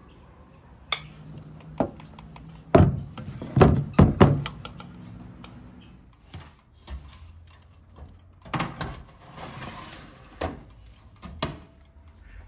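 Clunks and knocks of a baking tray and the glass door of a countertop electric oven being handled. The loudest is a quick run of knocks about three to four seconds in, with a few quieter, spaced-out knocks near the end.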